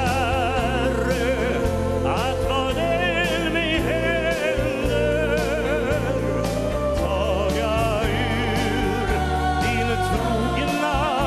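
A man sings a gospel song with a wide vibrato into a handheld microphone, backed by a gospel choir and a band with bass and drums.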